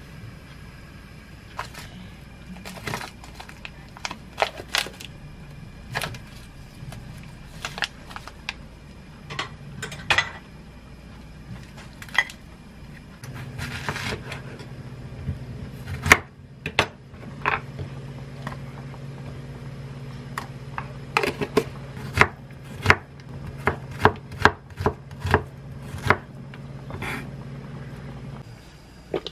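Chef's knife slicing an onion on a wooden cutting board: sharp knocks of the blade through the onion onto the board, scattered at first and then coming in quick runs in the second half. A steady low hum sounds behind the cutting through the middle and later part.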